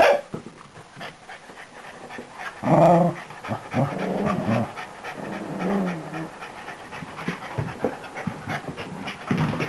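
Dog panting in quick short breaths, with a few short pitched vocal sounds about three seconds in and again near the middle.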